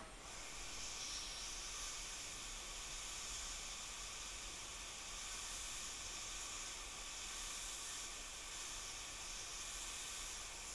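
Hot-air rework station nozzle blowing a steady hiss of hot air onto a small six-pin chip, melting its solder to lift it off a circuit board. The hiss stops near the end.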